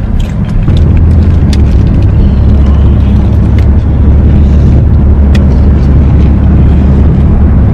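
Steady low rumble of a car heard from inside the cabin, with a few light clicks over it.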